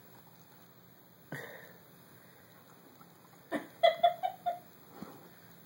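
Dog chewing hard edamame pods: a run of sharp crunches and mouth clicks about three and a half seconds in, the loudest part, after a soft swish about a second in.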